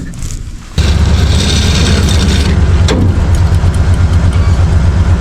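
Ford F-150 pickup engine coming on suddenly at full throttle about a second in and holding a loud, steady note under heavy load as the truck pulls against a bundle of zip ties. A single sharp crack sounds about three seconds in.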